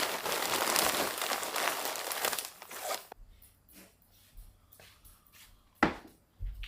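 Crinkling and rustling of wrapping material being handled for about three seconds, then stopping, followed by a few light clicks and one sharp knock near the end.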